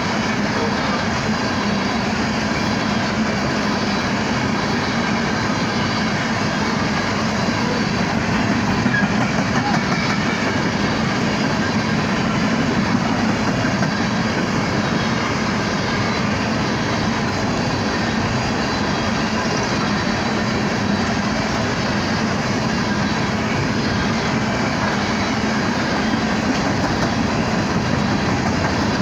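Empty coal hopper cars of a BNSF freight train rolling past, a steady, continuous noise of steel wheels on rail with the clickety-clack of wheels over the rail joints.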